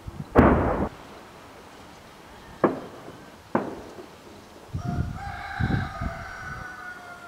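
A loud shelling blast about half a second in, then two sharp cracks a second apart. Low thuds follow, under one long rooster crow that starts about five seconds in.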